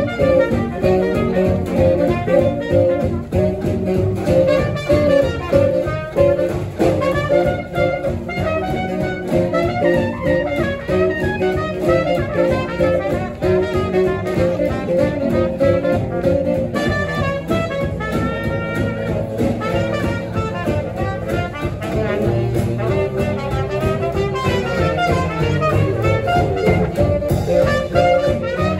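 Live swing jazz: a small combo, with trumpet and saxophone playing the melody over an archtop guitar, double bass and drums keeping a steady dance beat.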